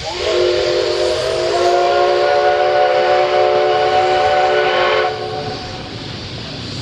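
Steam whistle of JNR Class C56 No. 160 steam locomotive sounding one long blast of about five seconds: a chord of several pitches that slides up at the start, holds steady and cuts off sharply. The hiss of steam from the cylinder drain cocks runs underneath.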